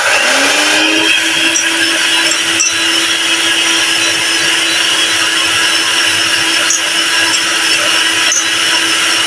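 Electric hand mixer starting up and running steadily, its twin beaters whisking eggs and powdered sugar in a glass bowl. The motor's hum rises in pitch over the first second as it comes up to speed, then holds level.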